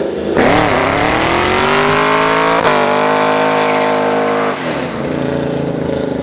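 Chevrolet Camaro doing a burnout. The engine revs up about half a second in and is held high while the spinning rear tyres hiss and squeal loudly. About four and a half seconds in the revs drop and the tyre noise eases.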